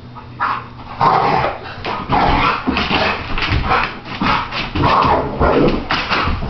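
American pit bull barking and yipping in rough play while wrestling with a man on the floor, a dense irregular run of barks that gets going about a second in.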